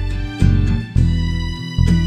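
Instrumental passage of a song, with no singing: sustained chords over a steady pulse of low bass notes.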